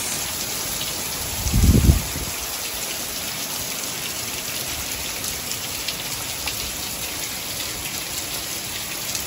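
Heavy rain pouring steadily onto a concrete rooftop, with a brief low rumble about a second and a half in.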